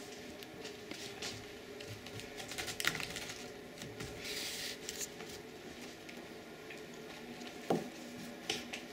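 A hand patting a Bengal cat's rump: a few sharp pats, about three seconds in and twice near the end, with rustling of fur and carpet between them.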